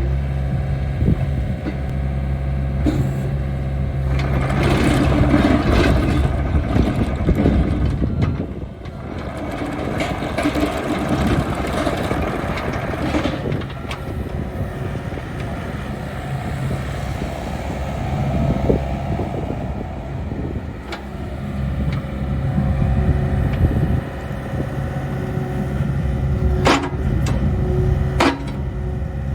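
2018 John Deere 60G mini excavator's diesel engine running, rising under load several times as the hydraulics work. Two sharp metal clanks near the end.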